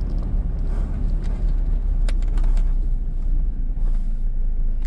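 Car heard from inside the cabin while driving slowly: a steady low rumble of engine and tyres on the road, with a few brief clicks about two seconds in.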